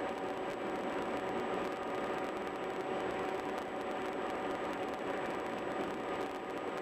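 Steady road and tyre noise of a car driving along the highway, with a faint steady hum mixed in.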